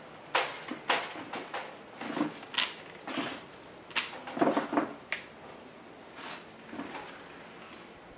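Irregular clattering and knocking of objects being handled, a dozen or so sharp knocks at uneven intervals.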